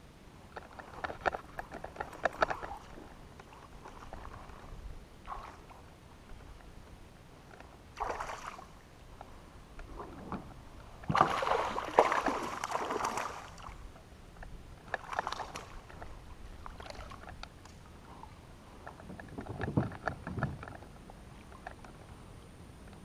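A hooked bass thrashing and splashing at the water's surface beside a kayak, loudest for a couple of seconds about eleven seconds in. Shorter bursts of splashing and gear clatter come before and after as the fish is played and netted.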